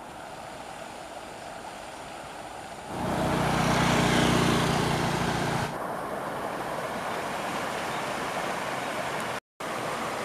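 Steady rushing outdoor noise. About three seconds in, a louder engine-like hum comes in for nearly three seconds and then drops away. The sound cuts out for a moment near the end.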